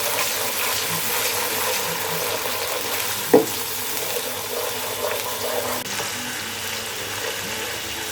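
Onion and garlic sizzling steadily in oil in a karahi, with a little water just added to keep them from burning. A single sharp knock sounds a little over three seconds in.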